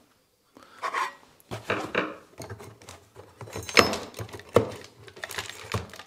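Black metal mounting brackets clinking and clattering as they are handled and lifted out of a cardboard box, with scraping and rubbing between the knocks. The sharpest clink comes a little before four seconds in.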